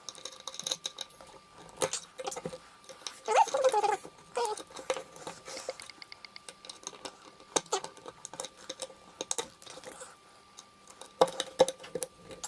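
Small metal clicks, taps and scrapes of tools and parts being worked on a Yale pin-tumbler lock cylinder, with a quick run of ticks near the middle. A short pitched, wavering sound about three and a half seconds in is the loudest moment.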